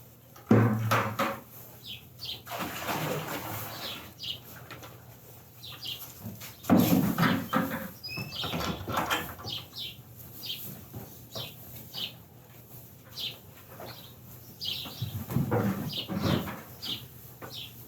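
Birds chirping over and over in short high calls, with a few louder rustling, flapping sounds about half a second in, around seven seconds in and again near the end.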